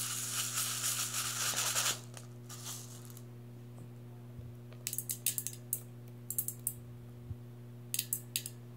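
Hard beads rattling in a small clear cup for about two seconds. After a pause, several quick runs of small sharp clicks follow as beads are dropped into a metal mixing bowl. A steady low hum runs underneath.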